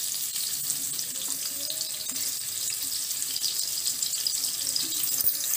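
Freshly added sliced onions sizzling in hot cooking oil in a kadai, a steady hiss.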